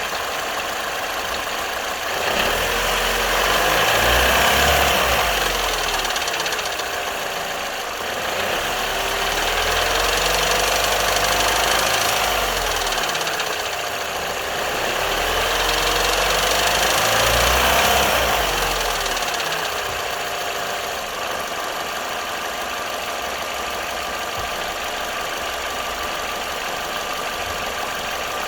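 Vauxhall Corsa D's 1.4 A14XER four-cylinder petrol engine running just after a cold start, with a rattling, knocking noise that the owner suspects is the timing chain, even though the chain, tensioner and guides are newly replaced. The noise swells and falls back three times, with the pitch sliding up and down, then settles to a steady run.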